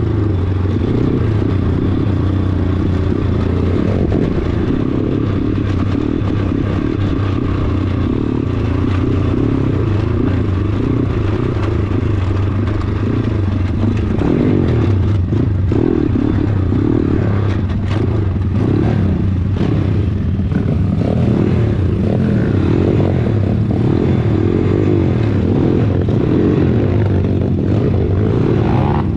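Single-cylinder four-stroke pit bike engine running continuously under load on a rough, stony dirt track. The bike rattles and scrapes over the stones and ruts.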